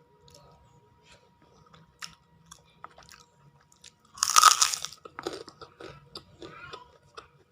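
Close-miked eating: small mouth clicks and chewing, then one loud crunch of a bite into crunchy food about four seconds in, followed by more chewing.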